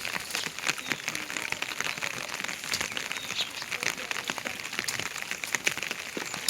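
Heavy rain falling, a dense, steady patter of many drops.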